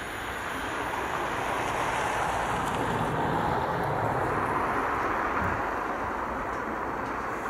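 Wind buffeting the microphone, with the distant rumble of an InterCity train that has just passed and is pulling away. It is a steady noise without clear tones that swells a little in the middle and eases near the end.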